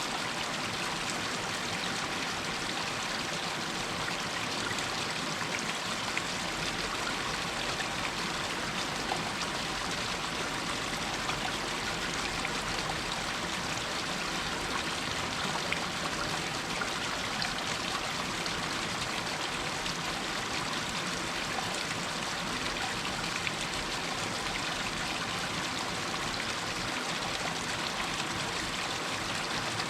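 Water running and trickling down a rocky hillside: a steady, even rush of a small stream over rocks, with small splashes here and there.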